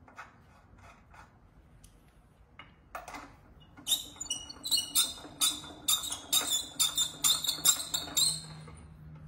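A metal hand tool working a bolt on a transmission bell housing: a run of about a dozen quick squeaky metallic strokes, two to three a second, starting about four seconds in and stopping just after eight seconds, with faint clicks before it.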